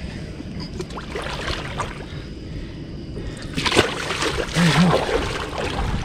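A big catfish splashing and thrashing at the water's surface as it is released over the side of a boat. The loudest splashes come between about three and a half and five and a half seconds in.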